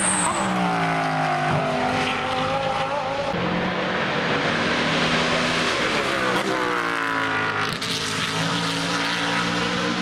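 GT3 race cars passing at speed, first an Audi R8 LMS with its V10 and then a BMW Z4 GT3 with its V8. The engine pitch falls as each car goes by and steps at each gear change.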